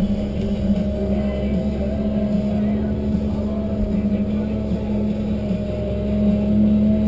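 Tigercat 1075B forwarder's diesel engine running steadily under crane work, heard from inside the cab as a constant drone with a steady hum, swelling slightly near the end.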